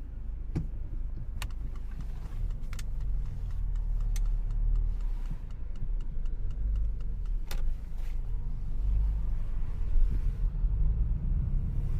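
Car cabin road noise while driving in the rain: a steady low rumble, with scattered sharp ticks from raindrops striking the car.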